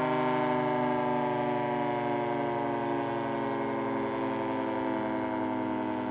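Federal 3T22 three-tone rotating civil-defense siren sounding its chord, which slowly falls in pitch and level as the siren winds down.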